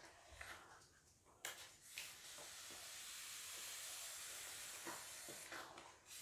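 A spatula scraping and pushing through thick rice-flour porridge in a wok, a few strokes at the start and again near the end. In between is a faint, steady hiss that starts suddenly about a second and a half in and lasts about four seconds.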